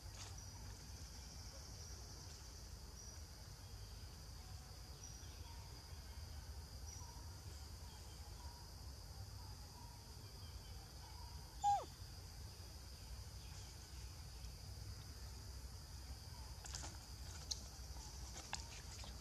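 Forest ambience: a steady high insect drone with faint chirps repeating about once a second. About twelve seconds in comes a single short falling squeak, the loudest sound, with a few faint ticks near the end.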